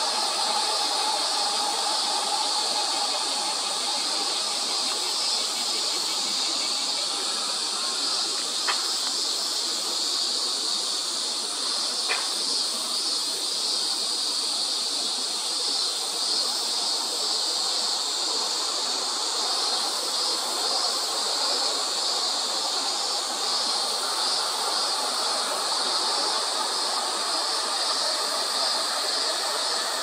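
Steady, even hissing background noise, with two faint clicks about nine and twelve seconds in.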